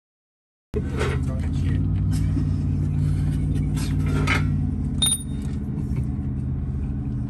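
A steady low hum, with a few short metallic clinks of tools and parts on the engine's exposed bottom end and a brief high electronic beep about five seconds in.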